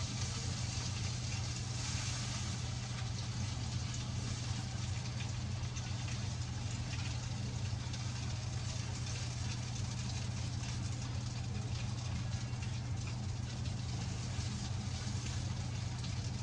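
Oven running with a steady low hum while the roasting duck's skin and fat crackle and pop in fine, scattered ticks.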